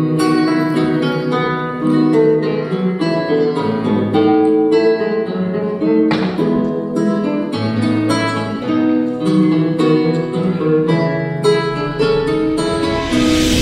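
Acoustic guitar music: a quick run of plucked notes and chords, with a short burst of noise near the end.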